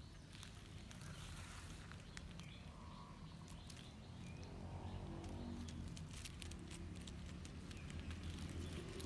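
Quiet outdoor garden ambience: a steady low rumble with scattered small clicks and rustles, and a few faint bird chirps.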